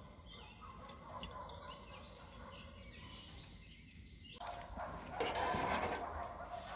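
Quiet outdoor background, then about five seconds in, stainless steel grill tongs clicking and scraping on a gas grill's grate as they grab a steak.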